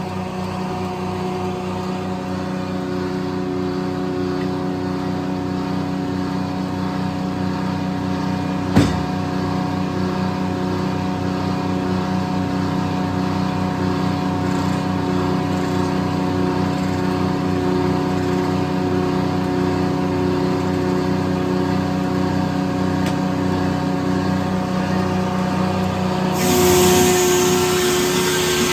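Circle sawmill's engine running steadily, with one sharp knock about nine seconds in; near the end a louder rushing, hissing noise joins in.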